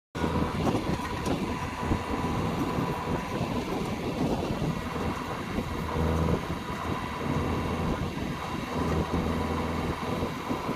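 JCB backhoe loader's diesel engine running steadily under working load, rising and falling a little.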